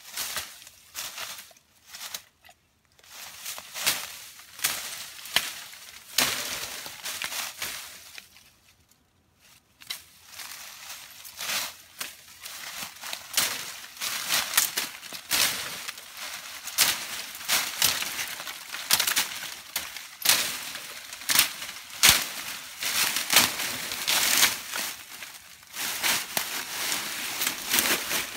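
Machete hacking through bamboo and dry brush: irregular sharp cracks and snaps with the crackle of dry leaves and stems, pausing briefly about nine seconds in.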